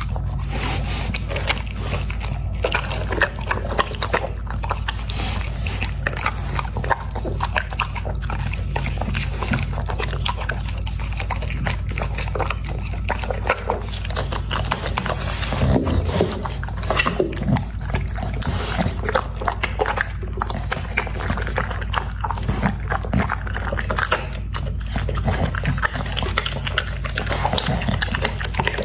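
American Pocket Bully dog eating noisily: wet chewing, smacking and crunching in quick, irregular clicks, over a steady low hum.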